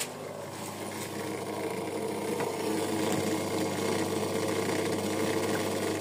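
Asko washing machine running its test programme, the newly fitted drain pump humming steadily and working after the replacement. The hum grows louder over the first couple of seconds, then holds steady.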